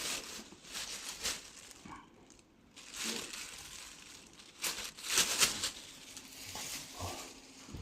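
Irregular rustling and crinkling in several short bursts, the loudest about five seconds in.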